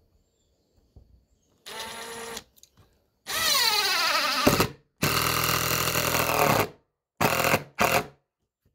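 Power drill driving a 3-inch deck screw into rough-cut lumber, in five runs: a short one, a longer one whose pitch drops steadily as the screw goes in, a long steady one, then two brief bursts near the end to seat the screw.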